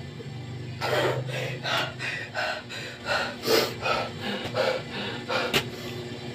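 A person breathing hard in quick, noisy breaths, about two to three a second, out of breath from doing squat thrusts. One sharp click comes near the end.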